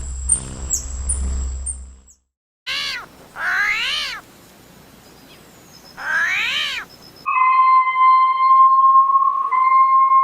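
A run of short animal sound clips. First a low rumble with high chirps, then two short meow-like cat calls that rise and fall in pitch, then a steady high whistle-like tone held for about three seconds.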